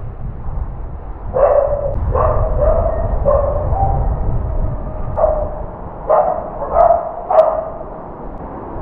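A golden retriever cross dog gives a series of about eight short, high-pitched whining barks, each starting sharply and settling into a held whine, over a low rumble.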